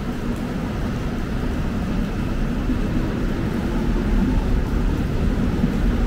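Low rumble of a Seoul Line 1 electric commuter train at the platform, with a faint steady hum, growing gradually louder.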